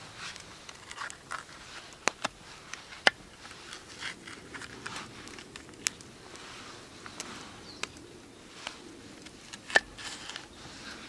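Knife cutting a red bell pepper on a wooden board: sharp, crisp clicks and snaps as the blade goes through the flesh and meets the wood, with soft rustling of the pepper being handled and its core pulled out in between. The loudest clicks come about three seconds in and near the end.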